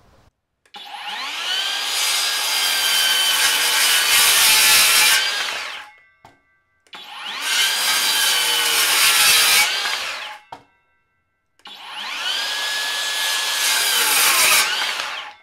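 Skilsaw 7-1/4 in. TRUEHVL cordless worm drive circular saw making three crosscuts through a 2x10: each time the motor spins up with a rising whine, the blade cuts through the wood, then the saw winds down. The first cut lasts about five seconds, the next two about three to four seconds each, and the saw is pushed hard without stalling.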